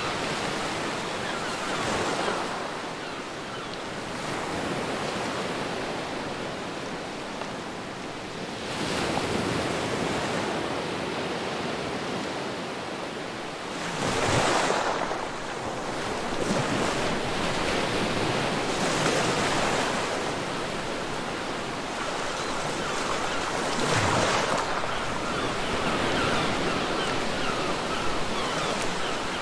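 Ocean surf on a beach: waves break and wash in repeatedly, a swell of rushing water every five seconds or so over a constant wash.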